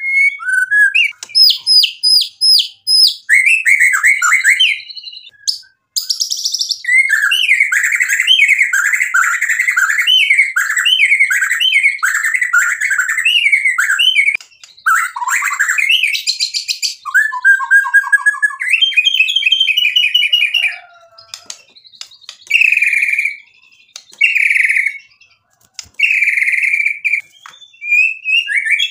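Male white-rumped shama (murai batu) in full song: a fast, varied run of trills, slurred whistles and chattering phrases, broken by a few short pauses in the second half. The song is packed with 'isian', learned phrases copied from other birds.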